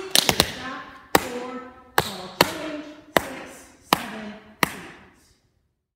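Metal taps on tap shoes striking a wooden floor: a quick cluster of three taps, then single sharp taps about every three-quarters of a second, each ringing briefly. The sound cuts off near the end.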